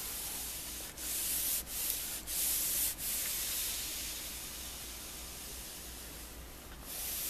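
A clothes iron with a non-stick shoe plate on its soleplate sliding over a shirt, a rubbing hiss. It comes as several short strokes in the first three seconds, then one steadier glide.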